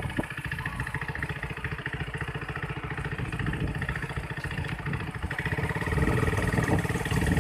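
Small vehicle engine running, with a fast, even low pulsing.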